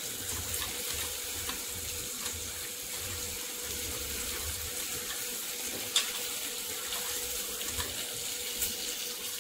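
Soaked tamarind squeezed and kneaded by hand in a steel bowl of water, a steady wet sloshing as the pulp dissolves for the rasam's tamarind water. A single sharp click comes about six seconds in.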